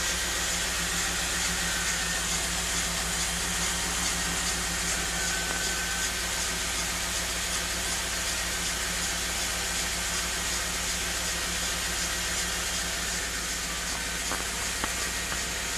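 1991 Pontiac Trans Am running steadily with its rear wheel turning, the rear disc brake giving a faint, thin high-pitched whine that comes and goes.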